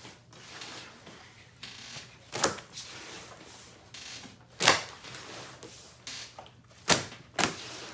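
Clear glue slime being stretched and worked by hand into bubbles, giving several sharp pops and clicks as air pockets burst, the loudest about halfway through and near the end.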